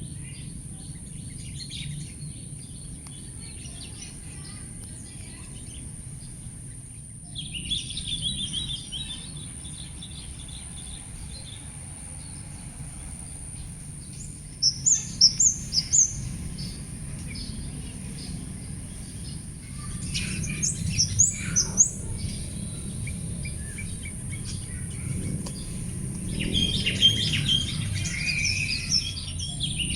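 Wild birds chirping and calling: scattered chirps, a quick run of about five sharp high notes midway, and busier chattering near the end, over a steady high hiss and a low background rumble.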